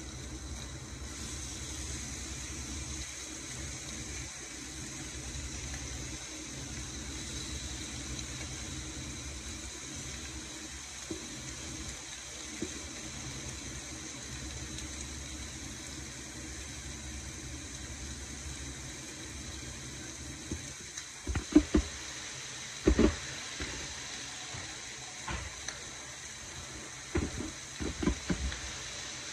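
A steady watery hiss of stovetop cooking, broken about 21 seconds in and again near the end by several sharp, loud knocks and clatters of cookware being handled.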